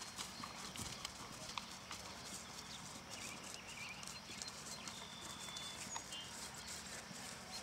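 Faint hoofbeats of a horse moving across turf: soft, irregular thuds over a steady outdoor background.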